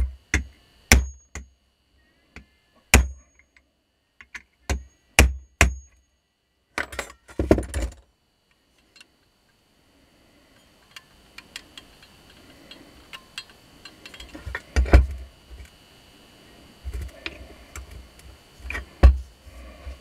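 Sharp metallic taps and clinks of a hammer and pliers on the parts of a vacuum cleaner motor being dismantled: a quick series of ringing knocks, a short rattle about seven seconds in, then softer knocks and handling with a louder knock near the middle and another near the end.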